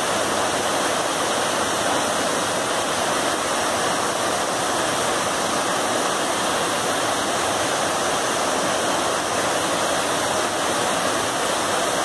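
Waterfall pouring over rock ledges into a pool: a steady, loud rush of falling water.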